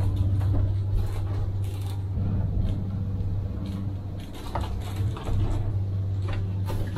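A steady low mechanical drone, with scattered light knocks and clatter as a plastic detergent bottle is taken from a cupboard and handled.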